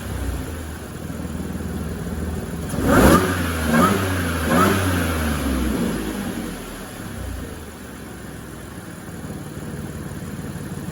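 Audi Q5's supercharged 3.0 TFSI V6 revved in three quick throttle blips about three seconds in, the first the loudest, then settling back to a steady idle. It breathes through a silicone intake coupler and a drilled-out airbox, fitted so the supercharger can be heard.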